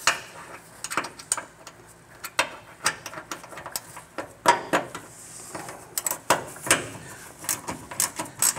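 Hand ratchet wrench clicking in short irregular strokes while a hinge bolt on a billet aluminum hood hinge is snugged, with a louder metal knock about halfway through.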